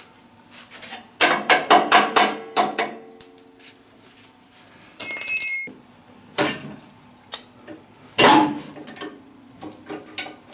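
Metal tools and parts clanking and knocking against each other: a quick run of ringing metallic strikes in the first few seconds, a brief high-pitched ring about five seconds in, then a few scattered knocks.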